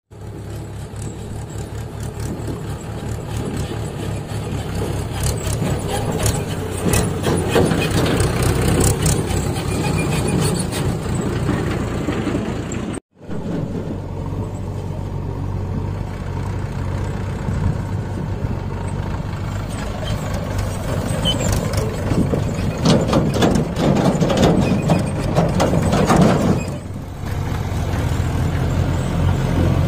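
Mahindra 585 DI tractor's four-cylinder, 50 hp diesel engine running steadily while pulling a fully loaded trolley, with rattling from the rig. The sound drops out briefly about halfway through.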